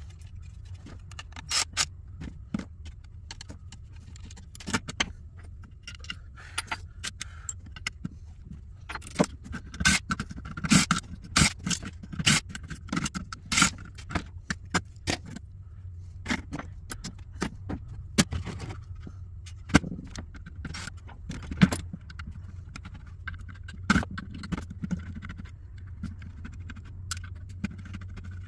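Irregular clicks, clinks and scrapes of a computer graphics card being dismantled by hand, as metal brackets, screws, heat-sink parts and hand tools are handled and set down on a wooden bench. A steady low hum runs underneath.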